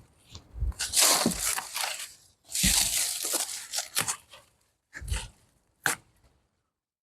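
Dry dead plant growth being torn and crunched by hand in a few noisy bursts: two longer rustling tears, then two short ones near the end.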